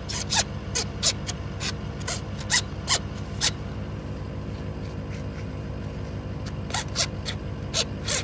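An engine running steadily with a low drone, overlaid by a series of sharp ticks or scrapes, about three a second, that stop for about three seconds midway and then start again.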